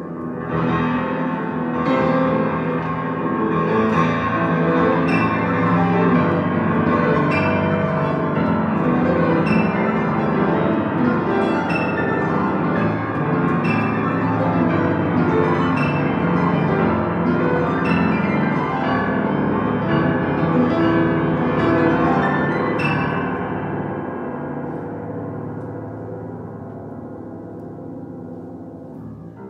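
Grand piano playing loud, ringing chords that sustain into one another, with a new chord struck about once a second. Over the last several seconds the sound thins and fades away.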